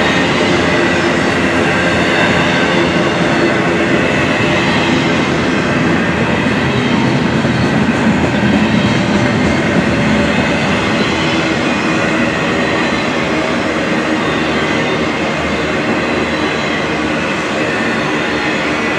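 Intermodal freight train's double-stack container cars and trailer-carrying flatcars rolling past: steel wheels on rail make a loud, steady rumble, with a few faint ringing tones held over it.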